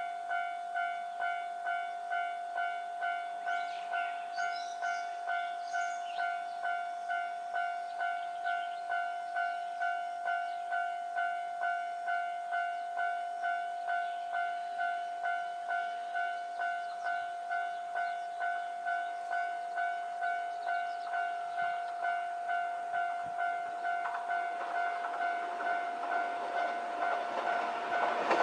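Electronic level-crossing warning bell ringing in an even, repeating two-tone ding, about one and a half rings a second. Near the end the running noise of an approaching JR 103 series 3500 train rises under the bell.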